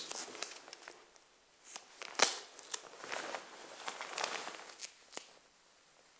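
Close handling noises of tape being worked by hand: scattered rustling and small clicks, with a sharp click about two seconds in.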